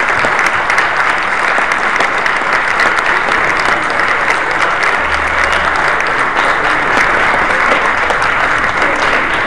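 Audience applauding steadily: a dense, even clapping from a concert crowd.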